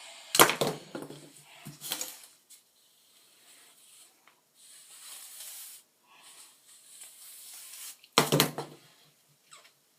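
Hairbrush strokes through long hair, a soft brushing hiss in several passes, broken by loud short sounds near the start and again about eight seconds in.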